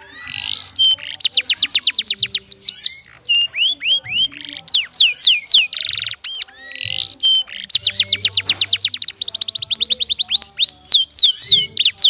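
Posture canary singing a long, loud song of fast trills: runs of rapidly repeated notes that each sweep down in pitch, with buzzy rolls between them and short breaks between phrases.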